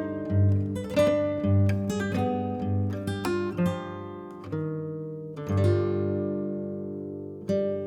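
Background music: acoustic guitar picking and strumming slow chords that ring out.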